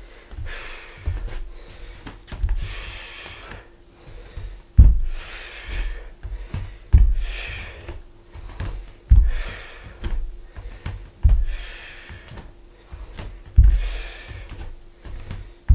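A man breathing hard during repeated lunges, with sharp exhales between dull thumps of his bare feet landing on a wooden floor about every two seconds.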